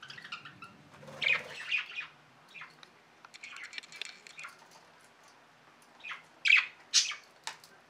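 Budgerigars chirping and chattering in short, scattered calls, the loudest ones near the end.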